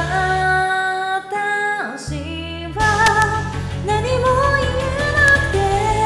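A pop song with a female voice singing held notes over a backing track; the bass drops out briefly for under a second a little after the start.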